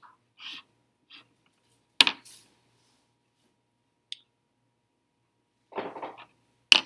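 Felt-tip marker scratching on paper in a few short strokes as a box is drawn, then a sharp click about two seconds in as the plastic marker is set down on a wooden table. Another sharp click comes near the end.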